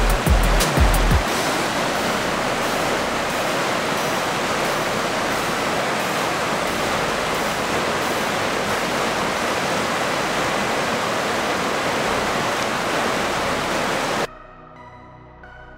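River water rushing over shallow rocky rapids, a steady noise that cuts off suddenly near the end, giving way to soft keyboard music. A drum beat from background music sounds in the first second.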